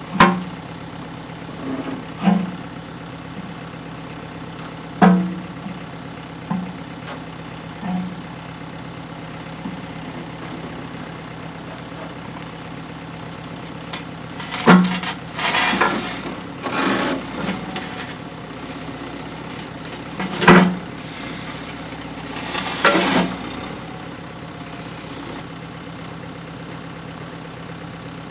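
A diesel backhoe engine idling steadily, with a string of loud, sharp knocks at irregular intervals, some in quick clusters.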